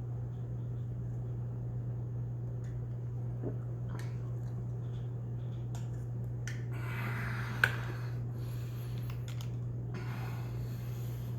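Steady low hum with scattered small clicks and knocks of objects being handled, two short hissing rushes of noise, and one sharp click about two-thirds of the way through.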